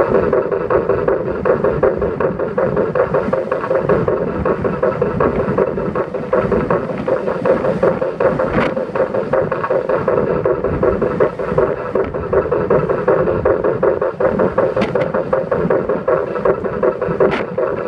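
Steady wind rush and road noise from a car driving at speed, heard through a camera mounted on its roof, with wind buffeting the microphone. A few faint brief ticks.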